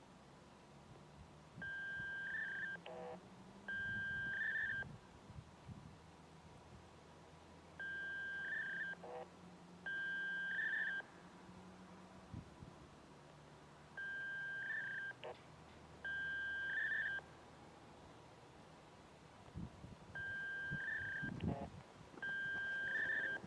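FSK polling data signal of a Federal Signal outdoor warning siren system: short tone bursts, each about a second long, a steady beep ending in a brief chirping warble. They come in pairs, a pair about every six seconds.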